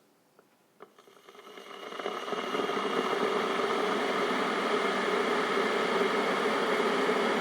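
Kettle heating water: a few faint ticks, then a rushing sound that swells over about two seconds, starting about a second in, into a steady rush of water coming to the boil.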